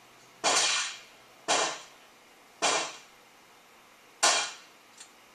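Four shots from a Ruger Super Single Six single-action .22 LR revolver, each a sharp crack with a short echo, spaced about one to one and a half seconds apart. A faint click follows near the end.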